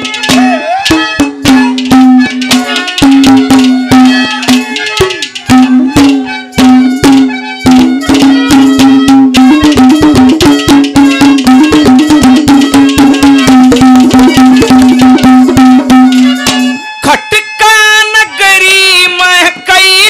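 Live Indian folk-music accompaniment with fast hand-drum strokes under a long held low note. About three-quarters of the way through it drops out for a moment, then resumes with a wavering high melody.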